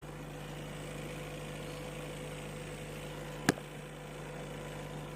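Polytron bigband audio system making a steady rough hum through its speakers when switched on, the 'ngorok' (snoring) fault, with one sharp click about three and a half seconds in.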